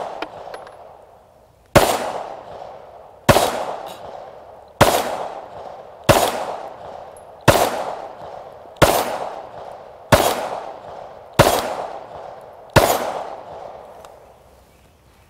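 Glock 19X 9mm pistol fired nine times in slow, steady succession, about one shot every second and a half, each shot followed by a long fading echo. These are the first rounds through the new pistol.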